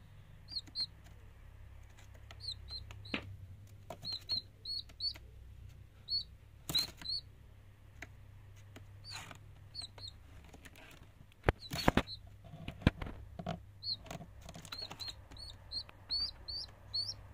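A small chick peeping: short high cheeps, often two or three in quick succession, repeating throughout. A few sharp knocks come about twelve seconds in, over a faint low hum.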